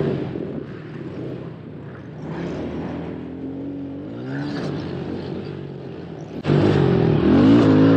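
Onboard sound of a youth motocross bike's engine revving up and down around a dirt track, its pitch rising and falling with the throttle. It drops quieter about half a second in and comes back loud suddenly about six and a half seconds in.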